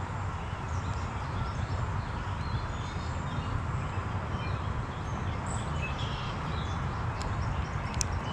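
Creekside birds chirping faintly over a steady low rumble, with a couple of sharp clicks near the end.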